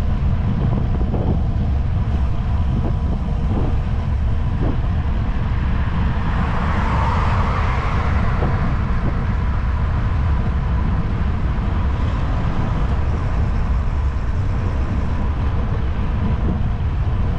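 Steady low rumble of wind on a bicycle-mounted microphone. A sedan overtakes close by, its tyre noise swelling and fading over a few seconds in the middle.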